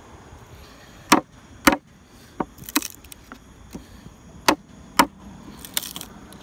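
Mallet striking a chisel, chopping waste out of a dovetail socket in a mahogany block. Four hard blows come in two pairs, one pair about a second in and one about four and a half seconds in, with lighter taps and short scrapes of wood in between.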